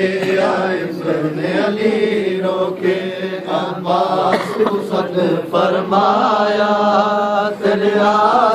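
Men's voices chanting a noha, a Shia mourning lament, in a melody with long held notes.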